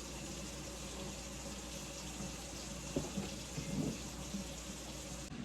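Water running from a kitchen tap in a steady hiss, shut off sharply near the end. A couple of light knocks come around the middle.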